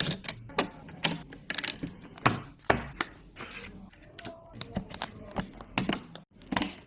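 Irregular sharp clicks and knocks of computer parts being handled and fitted together during a PC build.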